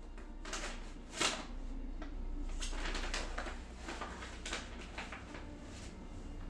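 Paper envelope being opened and handled: a series of crisp rustles, the sharpest about a second in.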